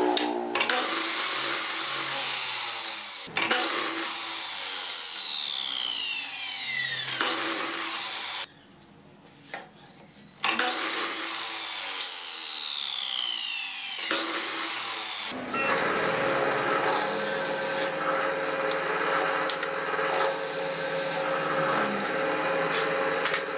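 Miter saw cutting pine boards: several times the blade's whine rises as it spins up, then falls slowly as it winds down after each cut, with a brief near-quiet gap partway through. From about two-thirds of the way in, a drill press runs steadily, boring into wood.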